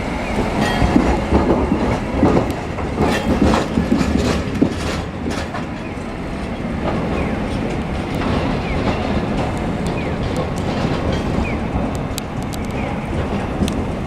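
City streetcar running along street track: a run of sharp wheel clacks over rail joints and points in the first few seconds, then a steady rolling rumble.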